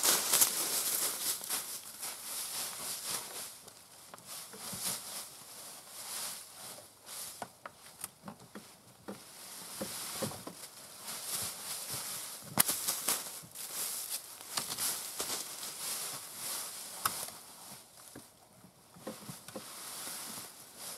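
Dry fallen leaves crunching and rustling underfoot and against a golf cart as its front end is hauled around by hand, with scattered crackles and a sharp knock a little past halfway.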